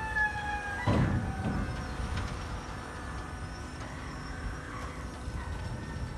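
Ship's crane machinery running: a steady whine that stops about a second in with a clatter, then a low machinery rumble.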